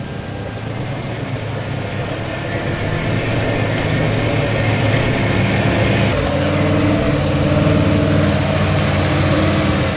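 Off-road truck engine running, growing louder over several seconds, its pitch stepping up about six seconds in.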